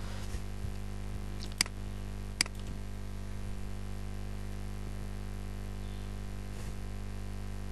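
Two sharp computer-mouse clicks, a little under a second apart, over a steady low hum.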